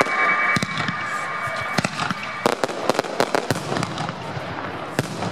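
Aerial fireworks shells bursting with sharp bangs, several seconds apart. About halfway through comes a dense run of rapid crackling pops.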